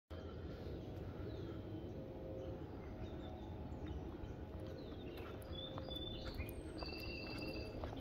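Birds chirping in short whistled calls that come more often in the second half, over a steady low background rumble.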